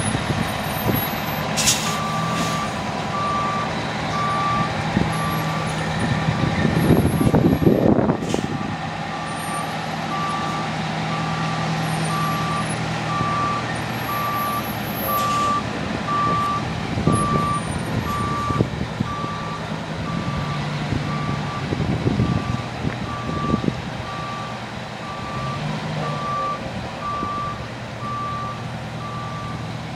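Fire ladder truck backing up, its reverse alarm beeping steadily about once a second over the running engine. A loud rush of noise swells around six to eight seconds in.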